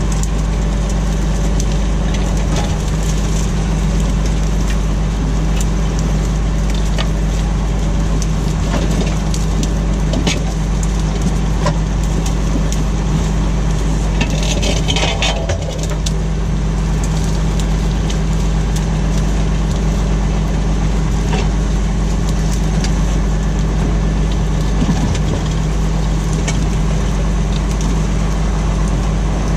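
Tractor engine running steadily under load while pulling a plough, with scattered clicks and rattles and a brief high-pitched noise about halfway through.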